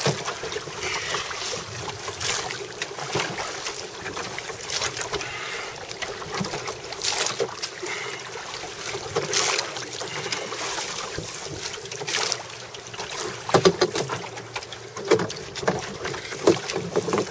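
Oars working a Hankins lifeguard boat through choppy sea: irregular splashes and sloshing of water at the oars and hull, with wind on the microphone. A few louder splashes come near the end.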